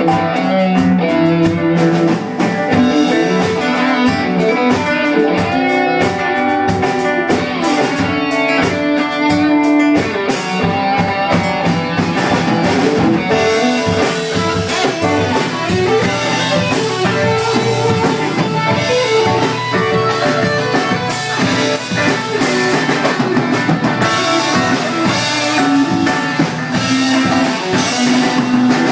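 A rock band playing: guitar over a steady drum kit beat.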